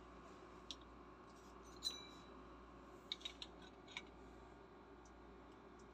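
Light clicks and taps of small metal parts as a paint spray gun and its in-line air filter are handled and fitted together. The loudest comes about two seconds in, a click with a short metallic ring, followed about a second later by three quick clicks and one more.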